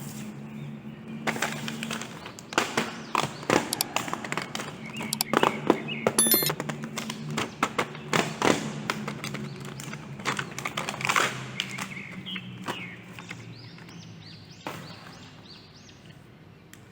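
Plastic toy pieces being handled, clicking and tapping irregularly and rapidly over a low steady hum. The clicks thin out in the last few seconds, where a few bird chirps sound.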